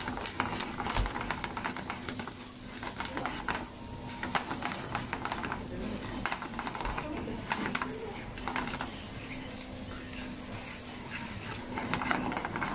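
Noodles sizzling in a hot frying pan while tongs stir and toss them, with frequent short clicks and scrapes of the tongs and pan. A faint steady low hum runs underneath.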